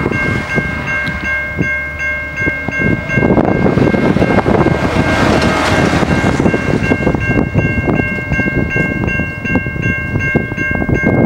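Railway level crossing warning bells ringing continuously: two steady high tones with an even, quick pulsing above them. Underneath runs a low rumbling, gusty noise that swells through the middle.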